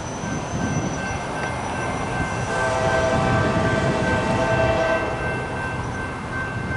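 Norfolk Southern freight locomotive's air horn sounding one long chord, starting about two and a half seconds in and stopping about three seconds later, over a low rumble.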